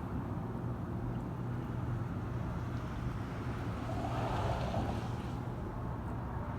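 Dodge Super Bee's V8 engine running steadily with a deep rumble, swelling briefly about four seconds in.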